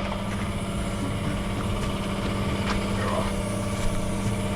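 An engine idling steadily, a constant low hum with a few light clicks over it.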